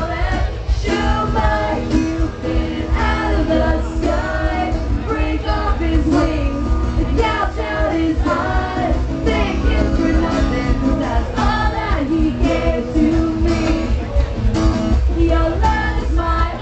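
A rock band playing live, with a lead vocal sung over a dense mix and a regular beat with heavy bass.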